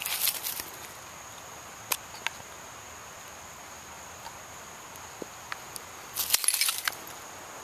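Footsteps crunching and rustling through dry leaf litter: a short burst at the start and a longer one about six seconds in, with a couple of small clicks between. A faint, steady high-pitched tone sits underneath.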